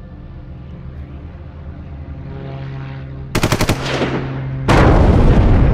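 Dark film score with low held notes, then about three seconds in a short, rapid burst of machine-gun fire. Near the end a much louder sustained roar of battle noise comes in suddenly.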